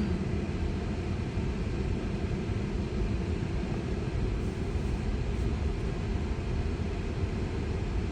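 Steady low rumble inside a Tesla's cabin, with no engine note: the road and tyre noise of the electric car rolling slowly.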